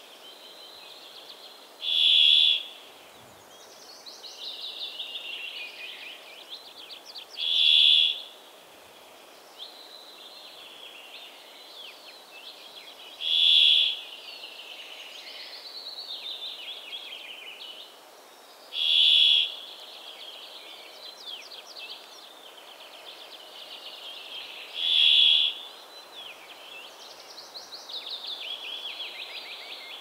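Brambling singing its buzzing song: five drawn-out nasal buzzes, each about half a second long and spaced about five and a half seconds apart. Fainter twittering birdsong fills the gaps between them.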